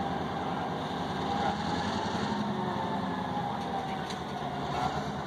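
A vehicle engine idling steadily, with a faint, slightly wavering high whine over it.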